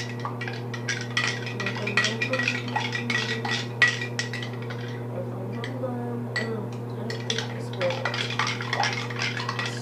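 A utensil clinking and scraping against a bowl in quick, irregular strokes while stirring a glue-and-water slime mixture, over a steady low hum.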